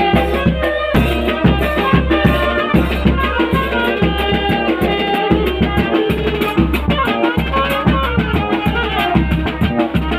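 Tanjidor brass band playing a lively tune over a steady, driving drum beat.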